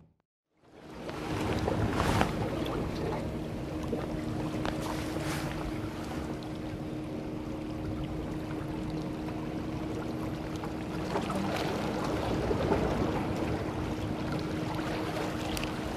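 Wind on the microphone and sea water lapping at breakwater rocks, with a steady low hum underneath, after a brief silent gap at the start.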